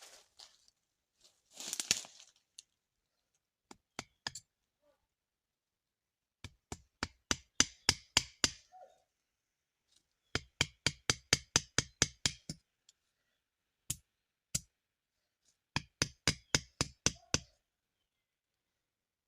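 Sharp knocks struck in quick succession, about five a second, in three runs of a couple of seconds each, after a brief rustle near the start.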